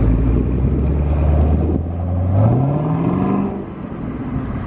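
Chevrolet Camaro ZL1's supercharged 6.2-litre V8 exhaust running steadily at low speed as the car pulls away, then rising in pitch as it accelerates about two and a half seconds in, and fading as it drives off.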